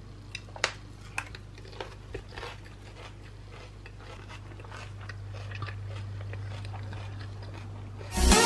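Crisp salad leaves and vegetables crunching and rustling as a fork tosses them in a glass bowl, with a few sharp clicks in the first couple of seconds, then softer crackles that fade out.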